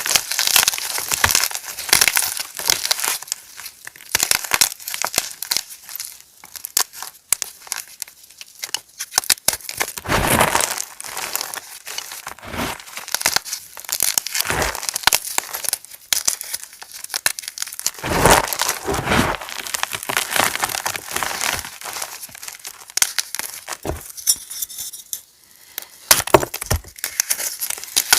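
Pieces of reformed gym chalk being crushed, a dense, irregular run of crisp crackling crunches with a few heavier, deeper crunches along the way.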